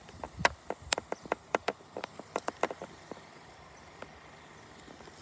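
A quick, irregular run of sharp clicks, about four or five a second, that stops about three seconds in, leaving only faint steady background.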